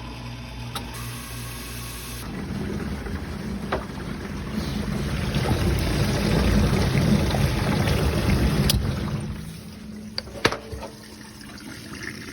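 Dishwasher running a cleaning cycle: a steady motor hum, then water rushing and splashing inside the tub, growing louder before dying down near the end, with a few sharp clicks.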